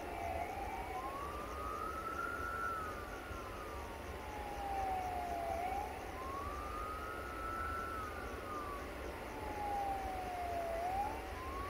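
An emergency-vehicle siren wailing, its pitch rising quickly and then falling slowly in a cycle of about five seconds, over a steady low rumble.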